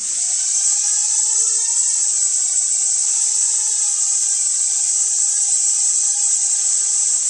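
Small DIY quadcopter's motors and propellers whining steadily as it lifts off and hovers, the pitch wavering a little as it flies. The sound starts and stops abruptly.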